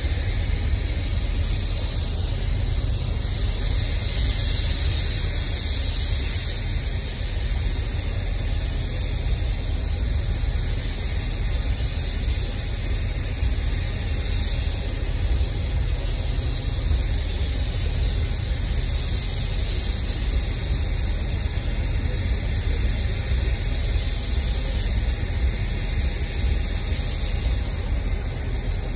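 Steady rumble and hiss of a long freight train's cars rolling slowly past.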